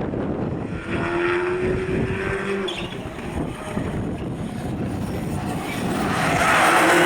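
Rally car engine running hard on a stage, with one steady engine note for a couple of seconds, growing louder near the end.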